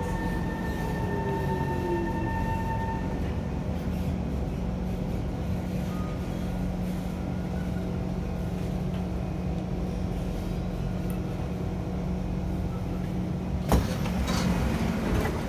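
Interior of a Kawasaki C151 electric multiple unit: a whine falls in pitch and fades within the first few seconds as the train brakes to a stop. A steady hum of the standing train follows. Near the end, a sharp clunk as the doors release and slide open.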